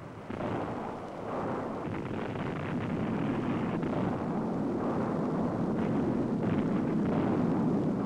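Dynamite blast in the rock walls of a canyon: a long, rushing rumble of the explosion and falling rock. It builds over the first couple of seconds and then holds steady, with no single sharp bang.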